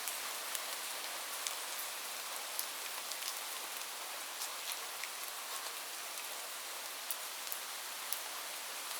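Steady rain falling, a continuous hiss with many individual drops ticking sharply and irregularly on a hard surface.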